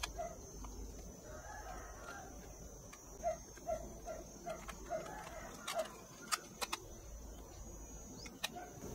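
Light plastic clicks and knocks as a cassette is handled from its clear case into the tape deck of a Retekess TR606 radio cassette player and the cassette door is shut. Behind it, a faint run of short, evenly spaced notes, about two or three a second.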